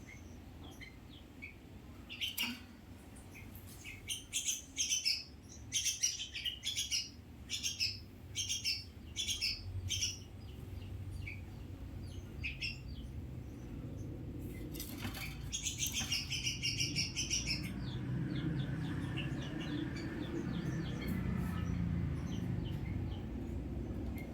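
Common hill myna calling: a run of short, sharp calls about once a second, then a fast string of calls later on. A low background rumble builds toward the end.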